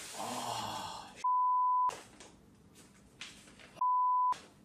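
Two censor-style bleeps, each a steady pure tone lasting about two-thirds of a second, the second one about two and a half seconds after the first. Between them there is faint rustling of a paper bag being handled.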